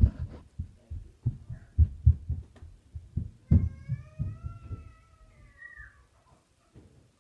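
Repeated dull thumps of the phone being handled and bumped, then one long, high meow starting about three and a half seconds in.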